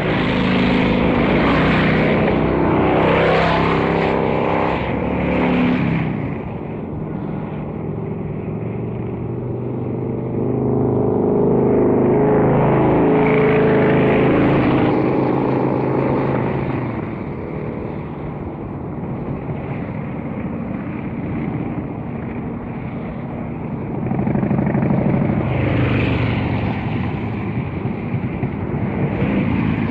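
Motorcycle engine running with its pitch and loudness rising and falling, swelling three times: at the start, about a third of the way in, and near the end.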